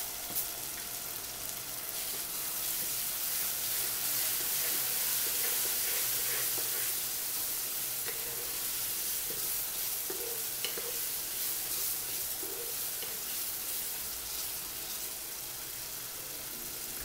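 Onion and spice masala sizzling in a non-stick kadai while a wooden spatula stirs it, with light scrapes against the pan. The spice paste is being fried down for a curry base.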